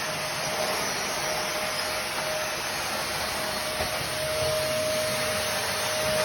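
Vacuum cleaner running steadily: an even rushing of air with a steady whine.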